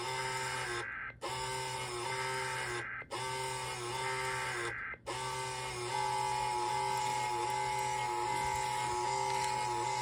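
Emergency Alert System SAME header data bursts, three of them separated by brief silences, followed about six seconds in by the steady two-tone EAS attention signal. The ENDEC's printer clatters throughout as it logs the incoming alert.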